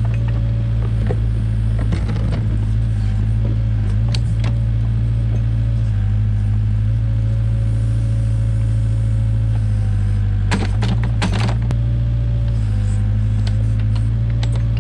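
Case 580K backhoe's diesel engine running steadily while digging, its note shifting slightly several times as the hydraulics work. Scattered knocks and clanks of the digging, with a quick cluster of sharp knocks a little over ten seconds in.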